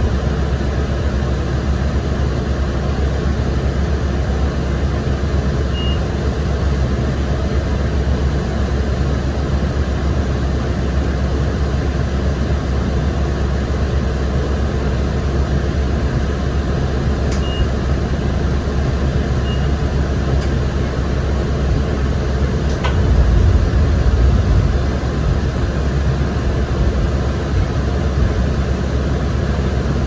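Cabin noise aboard a moving 2007 New Flyer D35LFR diesel transit bus: its Cummins ISL engine and road noise make a steady loud rumble, with a heavier low surge about three quarters of the way through. A few faint short high tones and clicks sound over it.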